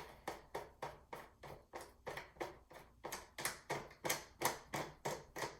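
Steady run of sharp clicks, about four to five a second, as the fasteners on a new Briggs & Stratton engine's air filter cover are worked loose with a hand tool.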